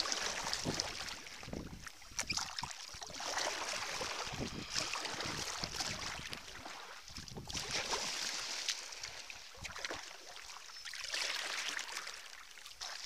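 Sea kayak being paddled through calm water and floating seaweed. The paddle blade swishes and splashes about every three to four seconds.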